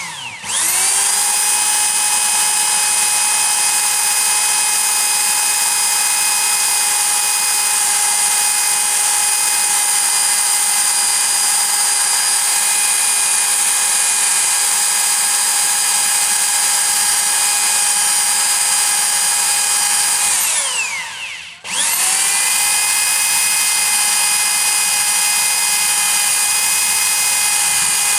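Small electric power tool motor running at a steady high speed with a constant whine. It spins up, runs for about twenty seconds, winds down with a falling pitch, starts again about a second later and is winding down again at the end.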